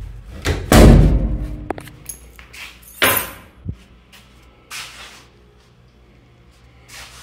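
A door with surface-mounted locks being unlatched and opened. There is a loud thump about a second in and another sharp knock a couple of seconds later, with smaller clicks and knocks of handling in between and after.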